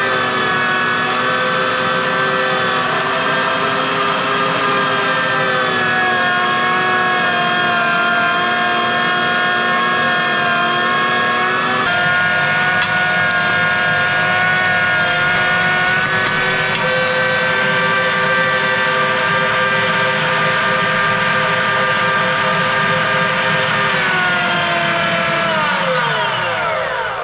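Small electric meat grinder running steadily, its motor whining while it grinds wild hog meat and maple bacon into sausage, the pitch shifting slightly a few times. Near the end the motor winds down, its pitch falling away.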